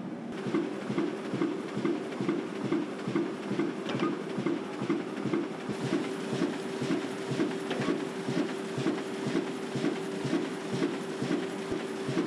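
Sheet-fed banknote printing press running, with a rhythmic clatter of about two to three beats a second over a steady hum, as sheets of printed notes feed through.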